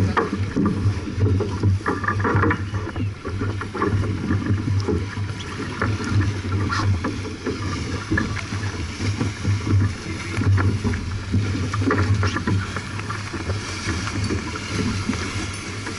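Wind and water noise aboard a J/24 keelboat under sail, with irregular gusts of wind buffeting the microphone.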